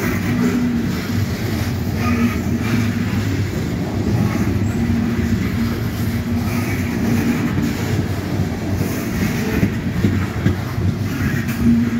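Loaded Norfolk Southern coal hopper cars rolling past on the rails: a steady, continuous noise of steel wheels running on track.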